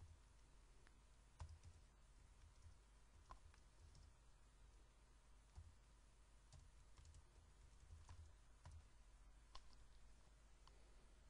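Faint, irregular computer keyboard keystrokes over a low steady hum.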